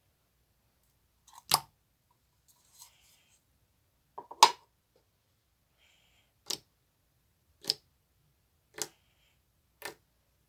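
Green slime being pressed and stretched by hand, giving sharp popping clicks as trapped air bubbles burst: six pops, the two loudest about a second and a half and four and a half seconds in, then roughly one a second.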